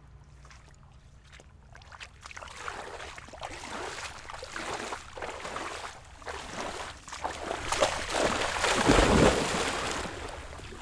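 Splashing and sloshing through shallow marsh water, starting about two seconds in: a person wading in rubber waders, then a dog bounding through the water. The splashing is loudest near the end.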